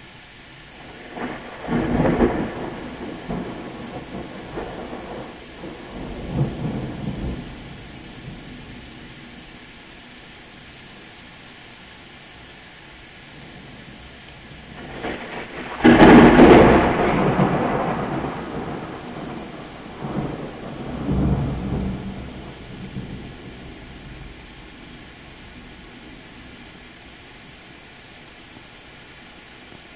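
Two rolls of thunder over steady rain. The first starts about a second and a half in and rumbles on for several seconds. The second, louder, breaks sharply about halfway through and rolls on for about seven seconds before fading back into the rain.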